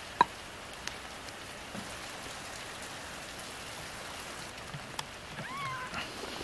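Steady rain: an even hiss with scattered drips and ticks, and one sharp tick just after the start. About five and a half seconds in, a kitten gives a short mew that rises and falls.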